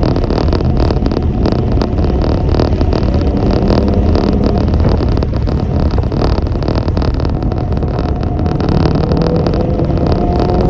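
A vehicle engine running, a loud continuous rumble with engine tones that drift slowly in pitch.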